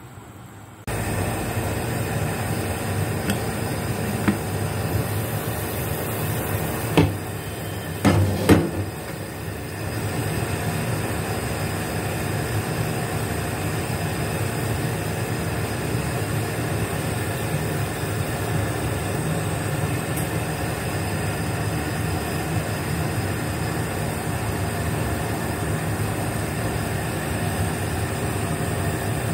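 Steady rushing noise of a fish steaming over boiling water on the stove, setting in about a second in. A few sharp knocks, like cookware or a utensil being bumped, come about four, seven and eight seconds in.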